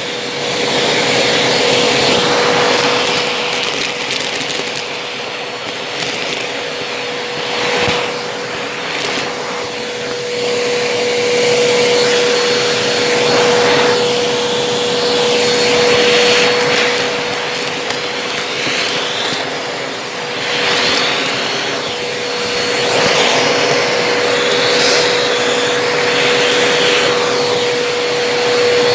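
Vacuum cleaner running with a steady motor whine, its suction noise surging every few seconds as it passes back and forth, with crackling of crunchy debris being sucked up.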